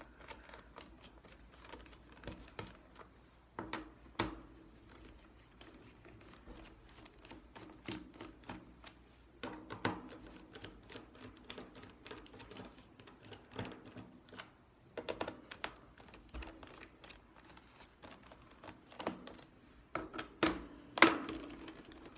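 A screwdriver loosening the screws on a Chromebook's plastic bottom case: irregular small clicks and taps of the driver against the screws and case, with a few louder clicks near the end.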